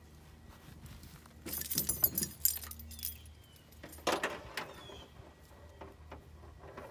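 A bunch of keys jangling for about a second and a half, starting about a second and a half in, followed by a short, duller handling noise about four seconds in.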